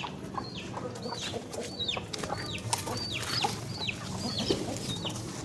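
A flock of chickens in a poultry shed calling: many short, high-pitched peeps that fall in pitch, about two a second, over a low din of other birds.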